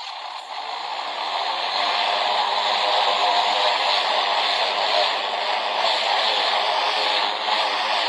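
Greenworks 80V cordless pressure washer running in its normal operating mode: the electric pump hums under a steady hiss of the water jet striking vinyl siding. The sound builds over the first two seconds, then holds steady.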